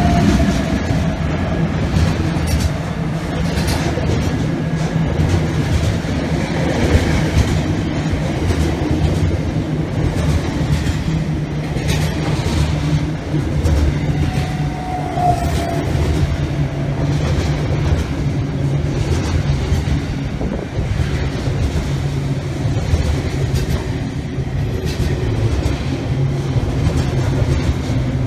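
A long freight train's container wagons roll past close by: a steady, loud rumble with clickety-clack from the wheels. At the start the trailing 80 class diesel-electric locomotive is passing. A brief higher tone, likely a wheel squeal, comes about halfway through.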